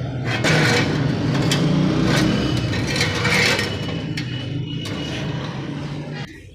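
Stick welding: the arc crackles and sizzles over a steady low hum from the welding machine. Both drop away shortly before the end.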